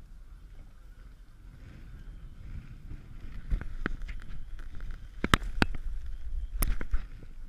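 Wind and sea noise buffeting the microphone aboard a boat, swelling in the middle, with several sharp knocks in the second half.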